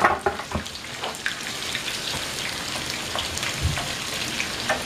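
Sliced onions sizzling and crackling in hot oil in a skillet, with a couple of dull knocks from the wooden spoon stirring them.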